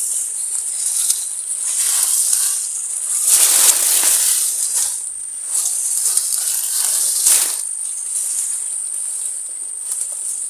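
Tall grass and reed stems rustling and swishing as someone pushes through them by hand, with several swishes, loudest around the middle. A steady high-pitched insect chirring runs underneath.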